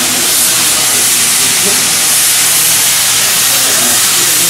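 Steady, loud hiss of escaping steam in a locomotive shop.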